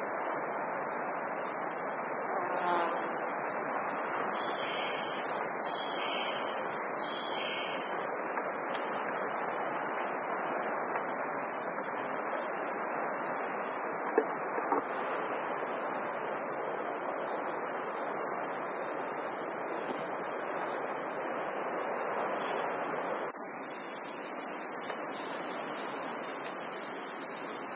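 Steady high-pitched buzz of a rainforest insect chorus over an even rushing noise, with three short bird chirps a few seconds in. The sound breaks off briefly near the end.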